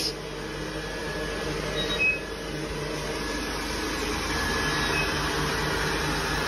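Robot vacuum cleaner running, a steady whirring hum of its motor and brushes.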